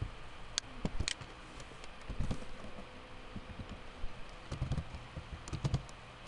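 Typing on a computer keyboard: irregular key clicks in small clusters.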